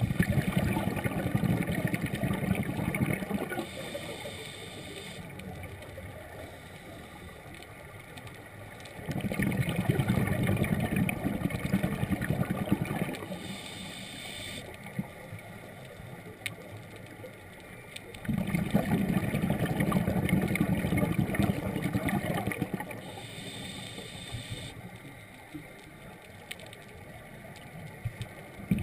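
Scuba diver breathing through a regulator underwater: three long bursts of exhaled bubbles gurgling, about nine seconds apart, with quieter stretches between them.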